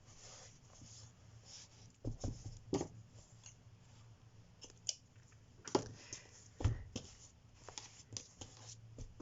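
Scissors and small crafting tools handled at close range: a few scattered sharp snips, clicks and soft knocks, typical of trimming a yarn end after sewing it in, over faint room hiss.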